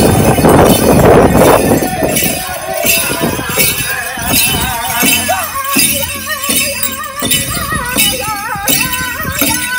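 Powwow song for a chicken dance: a steady drumbeat about twice a second under high, wavering singing voices, which come in a few seconds in. A loud rush of noise covers the first second and a half.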